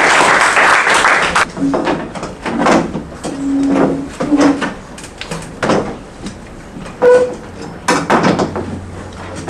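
A small audience clapping, stopping about a second and a half in. After that come scattered knocks, bumps and shuffles of people moving at a table, with a few faint murmurs.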